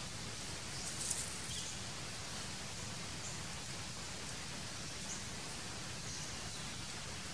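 Steady hiss of outdoor forest ambience, with a few short, faint, high chirps or ticks; a brief rustle about a second in is the loudest moment.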